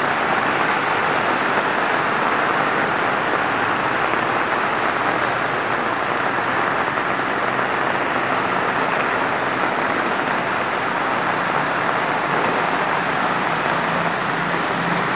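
Heavy rain falling steadily, a dense, even hiss. Beneath it is a faint low hum of vehicle engines, a little stronger near the end.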